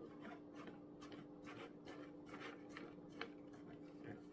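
Small screwdriver turning a screw into a plastic RC transmitter's battery cover: faint, scratchy clicks repeating about three times a second.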